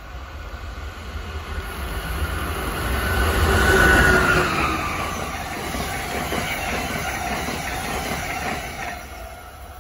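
Amtrak ACS-64 electric locomotive and its Amfleet passenger coaches passing at speed. The rush of the train builds to its loudest as the locomotive goes by about four seconds in, with a whine that drops in pitch. The steady rolling of the coaches follows and fades near the end.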